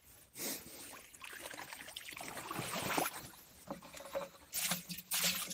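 Water splashing and streaming as a landing net scoops fish through the water. Near the end come a few sharper splashes as the net is emptied into a water-filled plastic barrel.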